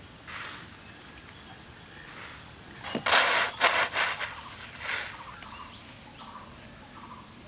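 Dry gram seeds (black chickpeas) rattling and clattering against a steel bowl in a few loud bursts about three seconds in. Faint duck calls come before them.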